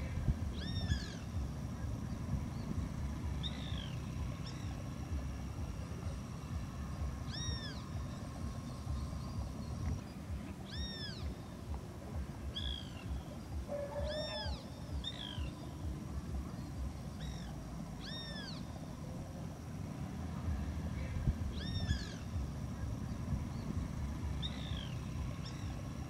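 An animal giving short mewing calls, each rising then falling in pitch, repeated every few seconds over a steady low rumble.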